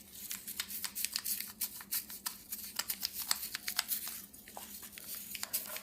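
Steel wire brush scrubbing grime off a Tecumseh snowblower carburetor, in rapid, irregular scratching strokes with a short pause about four seconds in.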